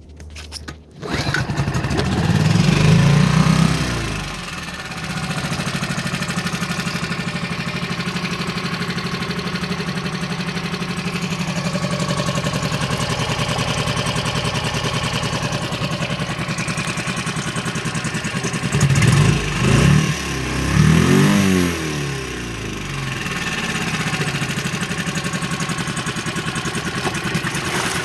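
2015 Tohatsu MFS6C 6 hp four-stroke outboard motor starting, revving up briefly and settling into a steady idle while it runs in a barrel of water. About twenty seconds in, the throttle is blipped twice, each a quick rise and fall in revs, and then it idles again.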